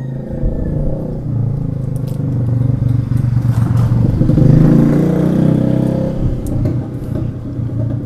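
A motor vehicle passing close by, its engine growing louder to a peak about halfway through and then fading away.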